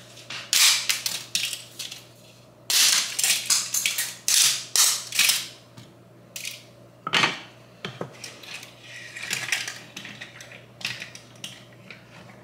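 Dry lasagna noodles snapped by hand into pieces: quick runs of sharp cracks in two main bursts, a few more single snaps after them.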